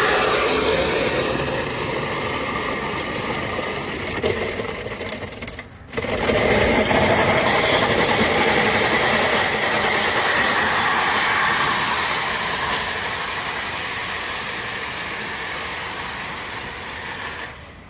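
Yellow wheel clamp locked on a Tesla Model 3's front wheel, scraping and grinding against the road as the car is driven off with it on. The sound breaks off briefly about six seconds in and starts again.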